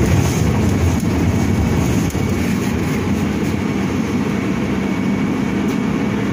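Cabin noise inside an Ursus CS12E battery-electric city bus under way: a steady low rumble of tyres and road, with a faint high steady tone above it.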